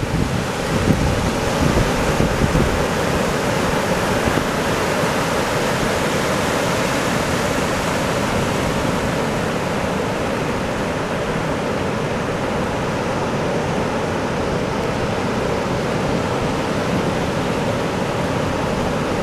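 Ocean surf breaking offshore and washing up a sandy beach, a steady roar of water noise, with wind buffeting the microphone.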